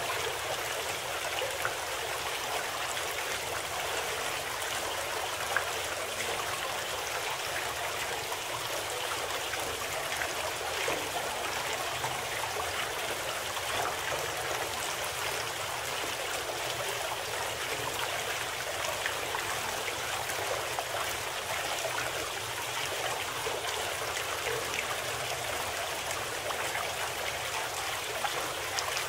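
Steady running water, a continuous trickling stream sound with faint scattered splashes.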